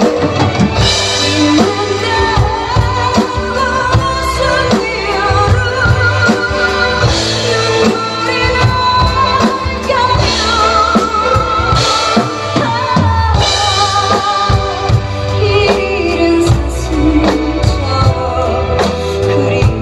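Song with a woman singing with strong vibrato over a drum kit keeping a steady beat, with cymbal washes every few seconds.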